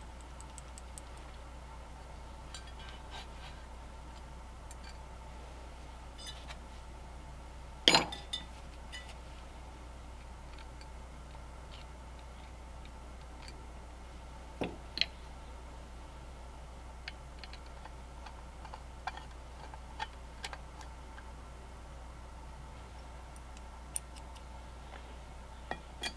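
Small brass and steel parts of a Stromberg 97 carburetor clicking and clinking as they are handled and fitted into the carburetor body, with scattered light ticks. One sharper knock comes about eight seconds in and two more near the middle.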